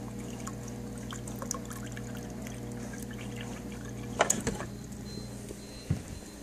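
Water from a Frigidaire refrigerator's door dispenser running into a glass, with a steady hum, as the newly connected line is flushed. About four seconds in the flow and hum stop with a short clatter as the glass comes off the dispenser.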